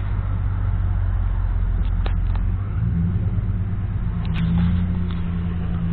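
Dodge Ram pickup's engine and exhaust rumbling loud and low inside the cab while driving, the pitch stepping up about three seconds in as it pulls away; the owner calls it a bad sound.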